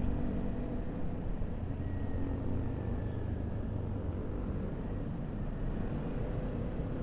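Motorcycle engine running steadily while riding, a continuous low rumble.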